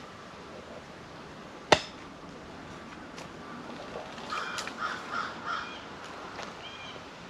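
One sharp knock a little under two seconds in, the loudest sound, followed a few seconds later by a bird giving four harsh calls in quick succession and then one shorter call.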